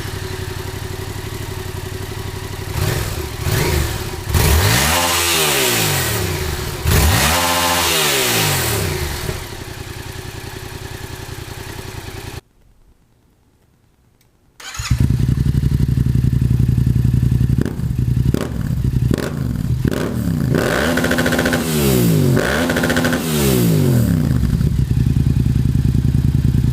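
Yamaha FZ-07 parallel-twin engine through a Yoshimura full exhaust, blipped hard from idle up toward redline and falling back, two big revs then, after a brief break, several more quicker ones.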